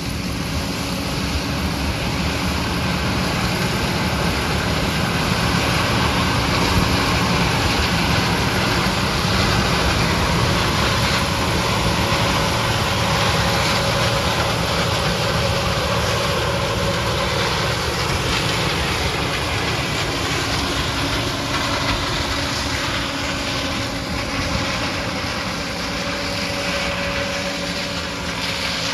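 Combine harvester running steadily while shelling corn, its engine and machinery making a continuous mechanical noise that swells slightly in the middle.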